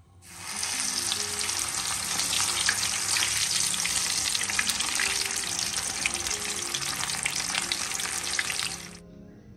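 Masala-coated rohu fish deep-frying in hot oil in a karahi: a dense, steady sizzle full of crackling pops. It cuts off abruptly shortly before the end, leaving soft instrumental music.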